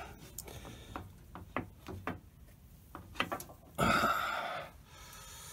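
Metal parts and hand tools being handled on a lathe's steel chip tray: several light clinks and knocks, then a short louder scrape about four seconds in.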